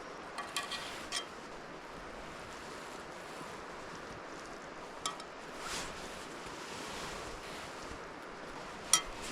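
Steady rushing noise with a few light clicks and taps: a cluster near the start, one about five seconds in, and a sharper one near the end.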